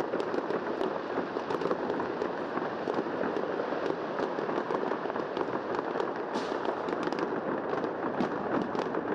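Fireworks and firecrackers going off without pause, a dense crackle of many small sharp pops.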